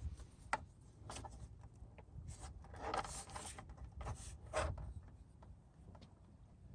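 Hands pressing and fitting the plastic tail fairing pieces of a Ducati Multistrada 1200S together: faint scattered clicks and a few short rubs of plastic, the longest about three seconds in and again around four and a half seconds.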